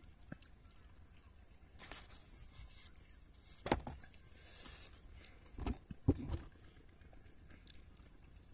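Quiet eating and handling sounds: a few scattered brief clicks and soft knocks, the sharpest about three and a half seconds in, as food and drinking glasses are handled.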